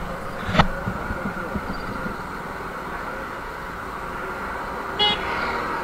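Steady street traffic noise with a single knock shortly after the start and a short vehicle horn toot near the end.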